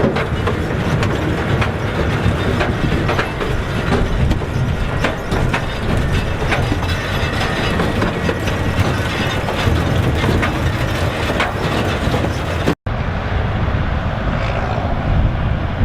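Massey Ferguson 3070 tractor running under load in a sugar beet harvest, with a constant rattling and clattering of machinery over a low engine rumble. About 13 s in the sound cuts out for an instant and comes back duller.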